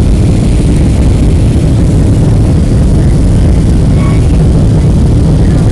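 Steady loud low rumble inside the cabin of a Boeing 737-700 on approach, from a window seat over the wing: the jet engines and the rush of air past the fuselage and the extended flaps.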